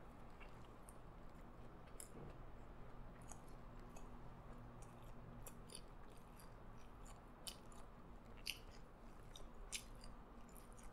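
Faint chewing of a mouthful of burger: scattered soft, sharp wet clicks and smacks from the mouth, over a low steady hum.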